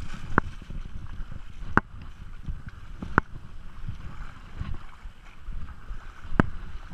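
Creek current rushing and sloshing around wading legs, with a low wind rumble on the microphone. Several sharp clicks stand out.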